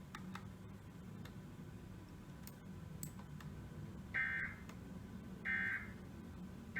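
Emergency Alert System end-of-message signal: three short, identical bursts of SAME digital data tones, about a second and a half apart, beginning around four seconds in. It marks the end of the emergency alert broadcast.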